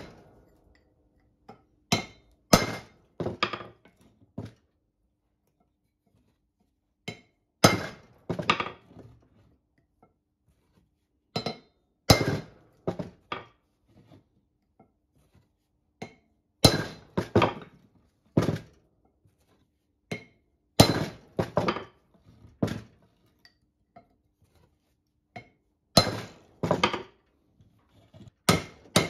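Hand hammer striking a cold chisel set against the bearing on a steel drive axle shaft: sharp, ringing metallic blows in short bursts of two to four, with pauses of a few seconds between bursts as the chisel is repositioned, working the bearing off the axle.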